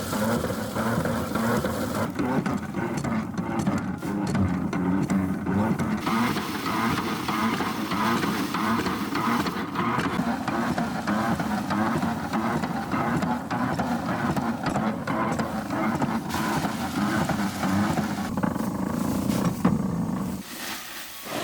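A small engine running steadily under load, cutting off suddenly about 20 seconds in.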